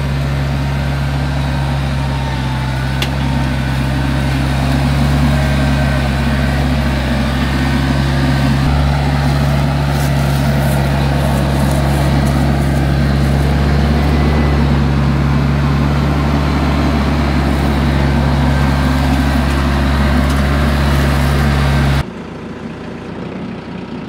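TYM T474 compact tractor's diesel engine running steadily and loudly at working speed while its loader grapple carries a cedar log. About 22 seconds in the engine sound drops away abruptly to a much quieter background.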